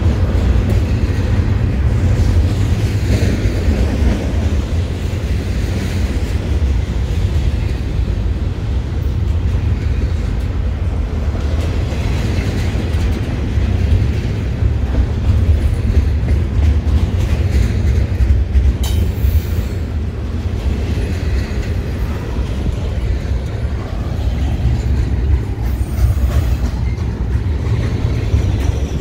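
CN double-stack container train's well cars rolling past close by: a steady, loud rumble of steel wheels on rail that holds without a break.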